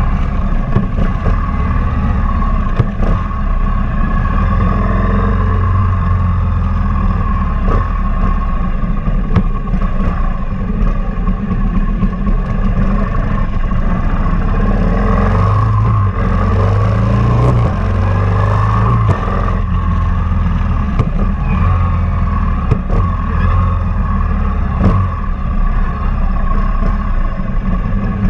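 S&S V-twin engine of a 2003 Big Dog Bulldog chopper running under way, with wind rush. The engine note steps up and down in pitch a few times about halfway through.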